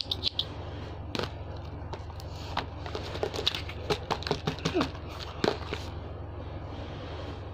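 Slime being squeezed and poked by hand, making scattered sticky crackles and pops over a steady low hum.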